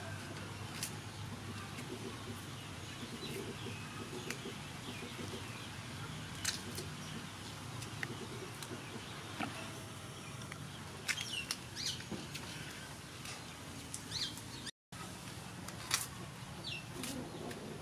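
Scattered light snaps and clicks as water hyacinth flowers are pulled off their green stalks by hand, over a steady outdoor background with a few short bird chirps.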